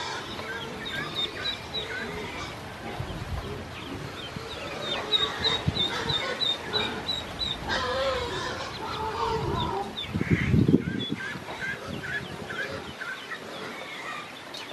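Ducklings peeping in quick, repeated high chirps while they peck and scrabble in a stainless steel feed bowl. A brief low rumble comes about ten seconds in.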